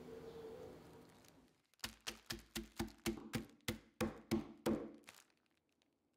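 Roasted peanuts in a plastic bag being pounded with a wooden tool to crush them: about a dozen sharp knocks, roughly four a second.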